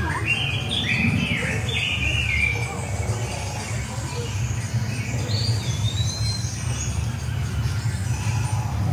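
Birds chirping in short curved calls, a cluster in the first couple of seconds and a few more about six seconds in, over a steady low rumble of outdoor background noise.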